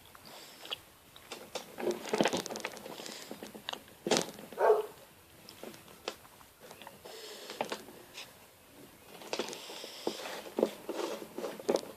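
Lego Technic plastic parts being pulled apart and handled: irregular clicks, snaps and rattles of small plastic pieces.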